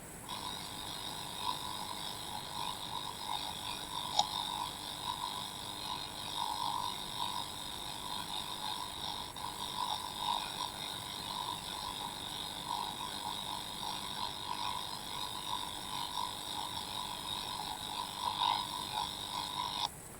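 Faulty audio from a Reolink security camera: a thin, scratchy noise confined to the middle range, with a flickering texture. It switches on abruptly just after the start and cuts off abruptly near the end. A steady high hiss runs underneath, and there is one sharp click about four seconds in.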